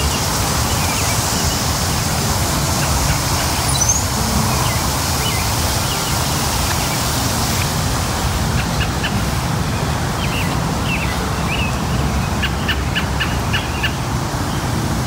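Steady hiss of lawn sprinkler spray over a low rumble, the hiss thinning about halfway through. Small birds chirp in quick series in the second half.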